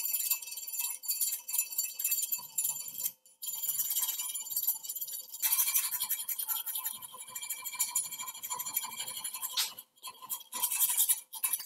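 Power grinder working steel: a steady high-pitched whine and rasp, broken by short gaps about three and ten seconds in.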